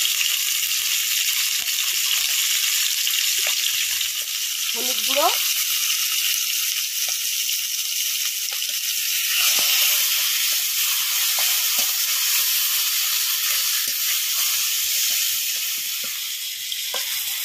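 Hilsa fish head halves frying in hot oil in a kadai: a steady sizzle with scattered small pops, growing louder about ten seconds in.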